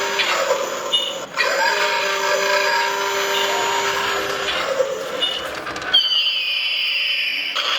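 Toy armoured vehicle's electronic sound effects playing through a small speaker: a steady buzzing tone that cuts out briefly about a second in. About six seconds in, a high whistling tone falls in pitch.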